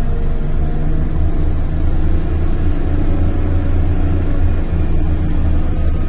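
Large wheel loader's diesel engine running under load as the loader raises its filled bucket: a steady deep rumble.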